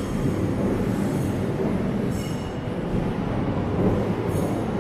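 CRH high-speed-type electric multiple-unit train moving along the track with a steady low rumble, with brief high-pitched squeals about two seconds in and again near the end.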